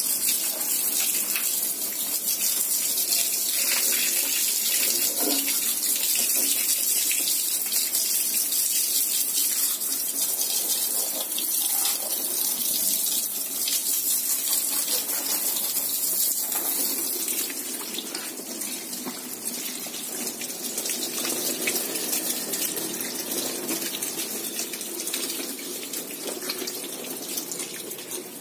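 Water from a hand-held hose pouring and splashing onto a car's engine bay and radiator, a steady rush of running water that grows quieter about two-thirds of the way through.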